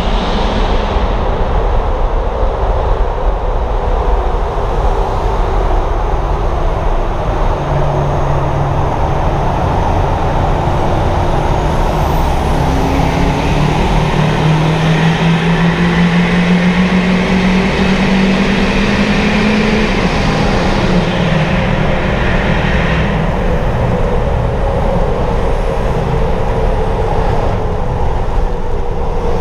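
Duramax diesel pickup trucks driving through a road tunnel: steady, loud engine and road noise. From about eight seconds in, one engine's pitch climbs slowly for some twelve seconds as it accelerates, with a higher whine over the middle part.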